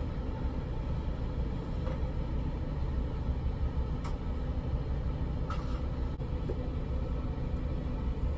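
Car engine idling, heard from inside the cabin as a steady low rumble, with a few faint clicks.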